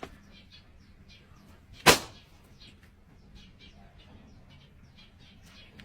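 One sharp, loud hit about two seconds in, over faint scattered clicks.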